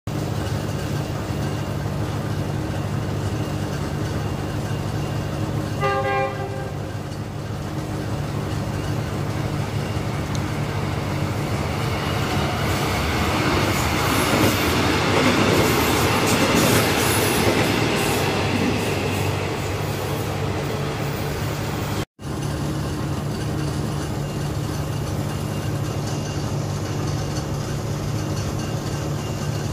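A State Railway of Thailand passenger train sounds its horn in one short blast about six seconds in. The train then passes, its wheels rumbling and clicking over the rail joints, swelling to a peak and fading away after about twenty seconds, over a steady low hum.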